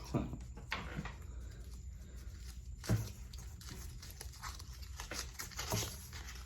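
Quiet handling noises: a few soft clicks and rustles over a low steady hum, the loudest click about three seconds in, as a draw slip is being opened.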